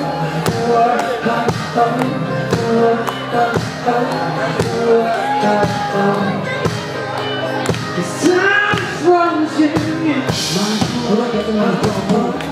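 Live band playing a pop song: a man singing into a microphone over guitar, with a regular beat.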